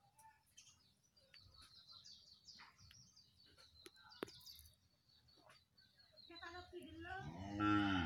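Faint small-bird chirping, a quick run of short high calls. Near the end, a louder, drawn-out voice rises and falls in pitch.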